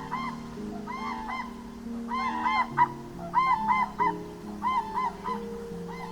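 Geese honking: repeated short nasal honks, often in quick pairs or triplets, over background music with slow held notes.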